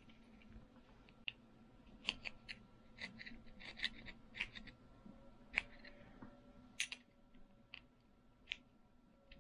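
Screwdriver tip scraping crumbling old gasket residue off the metal cover of a Tillotson HR76A carburetor: a quiet run of irregular short scratches and clicks, thickest in the middle.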